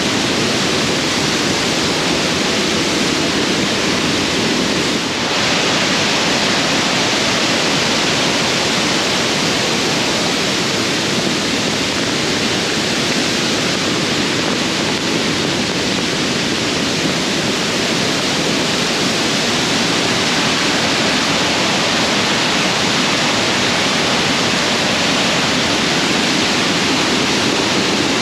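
Monsoon-swollen waterfall: loud, steady rush of heavily falling water.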